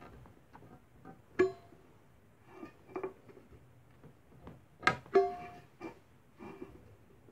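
A pointed metal tool jabbing and scraping into the thin metal lid of a tin can. There are several sharp taps, each leaving the can ringing with a clear pitch, and softer scrapes between them; the loudest pair of taps comes about five seconds in.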